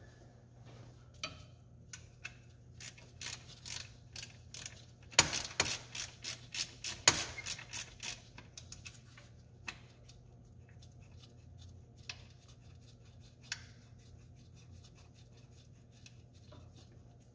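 Hand socket ratchet clicking as the accessory drive belt tensioner is tightened, a run of quick clicking strokes in the middle, then a few scattered clicks.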